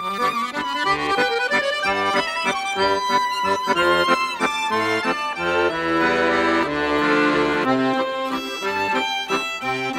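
Lively instrumental music led by an accordion, a quick run of melody notes over a steady bass, starting abruptly.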